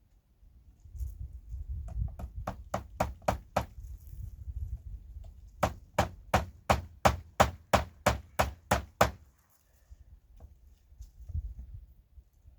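Hammer driving nails into wooden boards: a short run of about seven quick blows, then after a pause a longer run of about fourteen, at roughly four blows a second.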